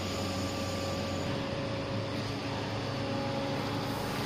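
Steady mechanical hum of background machinery, with a low drone and a thin high tone held throughout.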